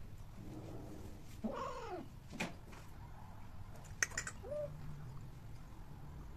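Persian-type cats mating, with a cat calling: one drawn-out call that rises and falls about a second and a half in, then a short call a little past the middle. A few sharp clicks come in between.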